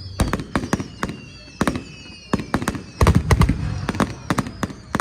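Fireworks display: a run of sharp bangs and crackles from bursting shells, densest about three seconds in, with faint high whistles sliding slowly down beneath them.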